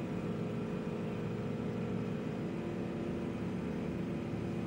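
Steady machine hum of a running motor, with several unchanging tones in it.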